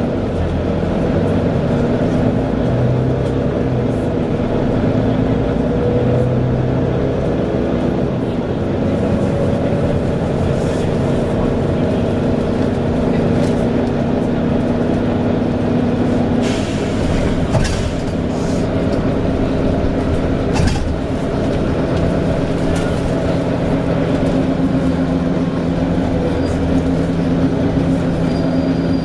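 Volvo B9TL double-decker bus heard from inside the passenger saloon: the engine and drivetrain running with several steady tones that shift in pitch every few seconds, with a slight cooling-fan whine. A few short knocks and rattles from the bus body come in the second half.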